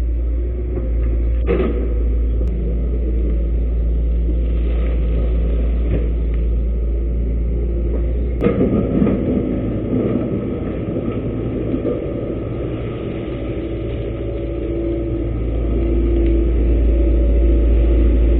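Excavator's diesel engine running steadily under work, with sharp knocks about a second and a half in and again near the middle, where the sound turns rougher for a few seconds before building again.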